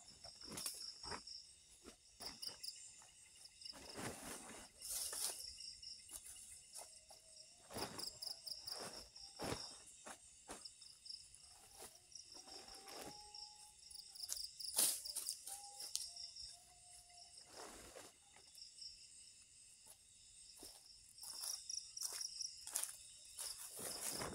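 Insects chirping in a steady, pulsing high trill, over scattered sharp rustles, snaps and footsteps on leaf litter as a person moves about close by; the footsteps and rustles are the loudest sounds.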